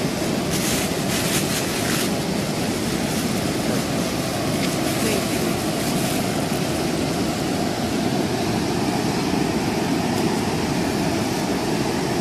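Steady rush of a shallow, rocky river flowing. A plastic bag crinkles briefly about a second in and again faintly around five seconds in.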